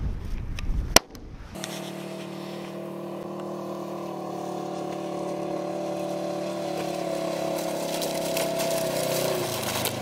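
A single shot from a .410 single-shot pistol about a second in. It is followed by a steady hum of several held pitches that slowly grows louder.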